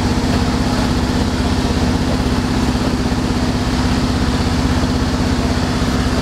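An engine idling steadily: an even hum with a fast, regular pulse and no change in speed.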